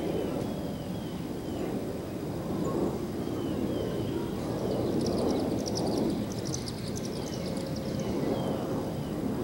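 Outdoor ambience: a steady low rumble, with a songbird repeating short falling chirps and, in the middle, a burst of high rapid twittering from another bird.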